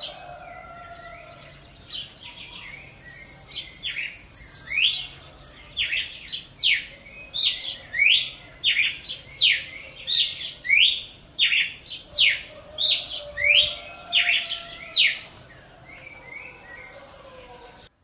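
Cardinal (Paroaria) singing: a long run of sharp, falling whistled notes at about two a second, strongest in the middle of the song. Fainter, lower whistles come near the start and near the end.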